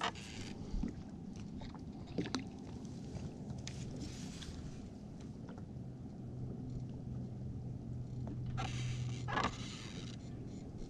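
Ambient sound aboard a small fishing boat on open water: a low rumble with a steady low hum for several seconds in the middle, a few light knocks, and a brief hiss near the end.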